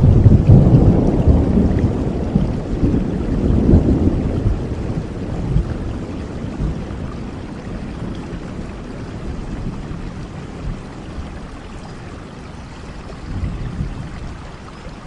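Thunder over steady rain: a loud rumble breaks in suddenly, rolls on and slowly fades over about ten seconds, with a smaller low swell near the end.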